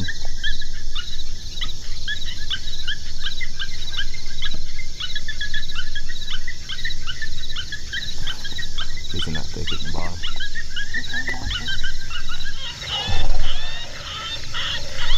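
Coyotes yipping and howling in a rapid chorus of short, high, up-and-down calls, with a few lower, rougher calls in the second half.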